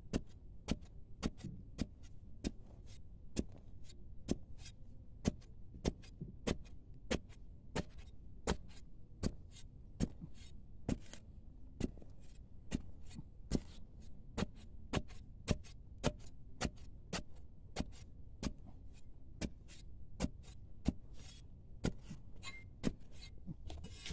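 A metal spade blade chopping repeatedly into dry, sandy soil, about one and a half to two sharp strikes a second in a steady digging rhythm.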